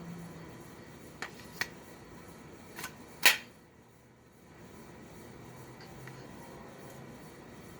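A few light clicks, then one sharp, much louder click about three seconds in, over faint small-room background noise.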